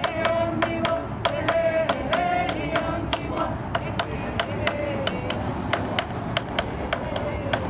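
Hand drum beaten in a steady pulse, about three to four beats a second, under a voice chanting an Apache welcome song; the singing is strong in the first few seconds, then fades, leaving mostly the drumbeat.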